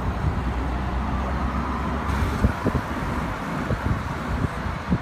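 Car engine and road noise heard from inside a moving taxi's cabin: a steady low hum that gives way to an even rumble, with a brief hiss about two seconds in.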